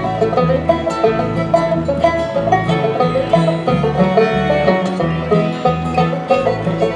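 Bluegrass string band playing an instrumental passage: banjo out front, with fiddle, acoustic guitar and upright bass.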